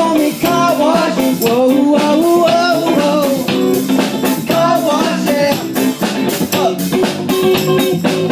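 A live funk band playing loudly, with electric guitar and drum kit keeping a steady beat and a voice over the band.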